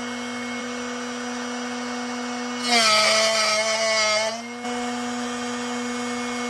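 Drill Doctor XPK bit sharpener motor running with a steady hum. About three seconds in, the chuck-held drill bit grinds against the sharpening wheel for under two seconds, and the motor note drops slightly under the load. The grinding means the wheel is still taking metal off the bit's cutting edge, so the bit is not yet fully sharpened.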